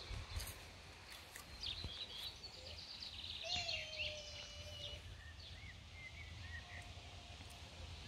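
Faint outdoor ambience: birds calling and chirping now and then, most busily a few seconds in, over a low steady rumble.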